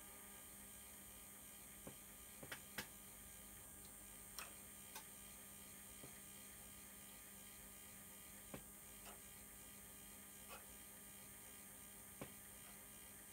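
Near silence: a small electric motor running a belt-and-wheel bean agitator gives a faint steady hum, with about a dozen faint clicks at irregular intervals.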